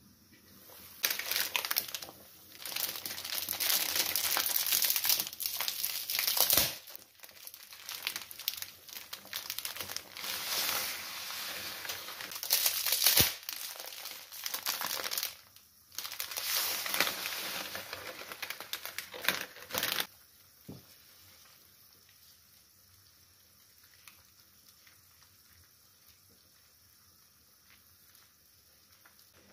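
Plastic spaghetti packet crinkling in repeated bursts as it is handled, opened and emptied, stopping about two-thirds of the way through.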